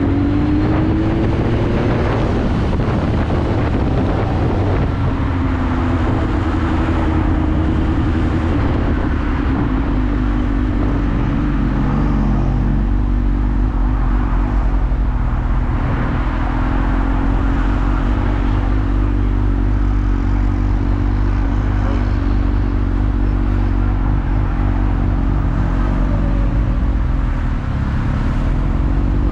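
Motorcycle engine running on the move, its pitch rising and falling a few times as the rider eases on and off the throttle, over a steady low rumble.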